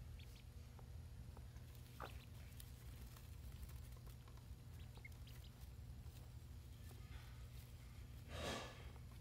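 Very quiet room with a low hum, faint scattered ticks and tiny squeaks, and one short rustle of straw bedding about eight and a half seconds in.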